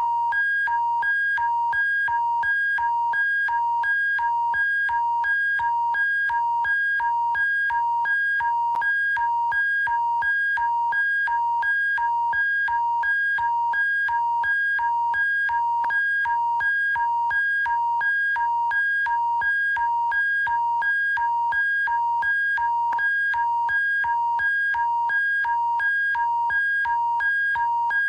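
Alberta Emergency Alert attention signal: an electronic alarm tone switching steadily back and forth between a low and a higher pitch, about twice a second, over a faint low hum.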